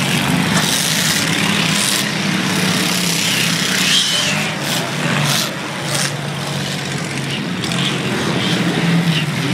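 A pack of junk race cars running laps on a dirt track, their engines making a loud steady drone, with several short sharp noises in it.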